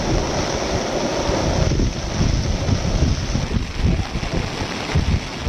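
Rushing floodwater, a loud steady roar, with wind buffeting the microphone in irregular low gusts.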